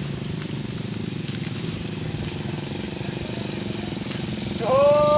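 A small engine running steadily at low revs. Near the end, a brief held call sounds over it and is the loudest thing heard.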